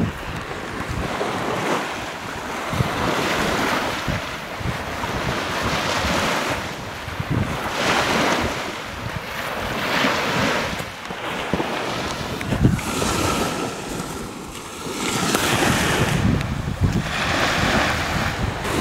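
Wind buffeting the microphone over surf washing on the beach, the rush rising and falling every couple of seconds.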